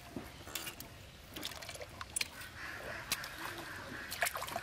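Bare hands squelching and splashing through wet mud and shallow muddy water, with a scatter of short wet clicks and slaps.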